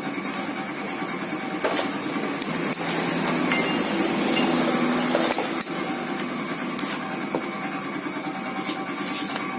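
Scattered light metallic clinks and taps over a steady mechanical hum.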